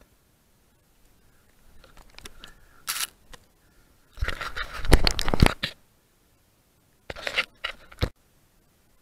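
Bursts of scraping, crunching handling noise as sand and clothing rub against the camera, in three groups with near silence between them, the longest and loudest in the middle.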